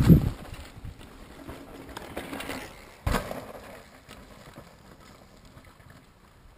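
Mountain bike passing close and rolling away down a dirt trail, its tyre noise dropping off sharply just after the start and then faint; a single sharp knock about three seconds in.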